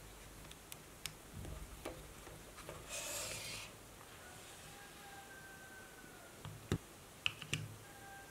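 Quiet handling sounds of a small wooden-stick RC car chassis being assembled: light clicks and taps of small parts and a screwdriver, with a short scraping rub about three seconds in and a few sharper clicks near the end.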